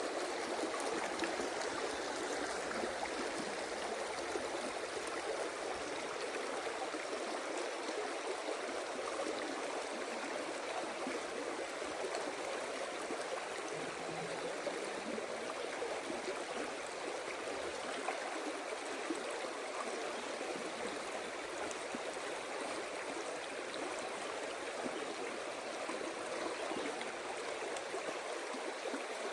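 Mountain stream rushing steadily over rocks and riffles, an even rush of water.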